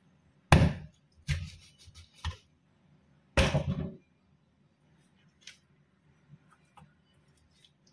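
Meat cleaver chopping into a raw whole chicken on a wooden chopping board: four chops in the first half, the first and last the loudest. After that only faint taps as the bird is handled.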